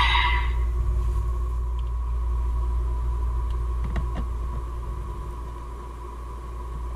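Hands handling a DX Desire Driver toy belt over a low steady rumble and a faint steady tone, with a sharp plastic click about four seconds in as a buckle is snapped onto the side of the driver.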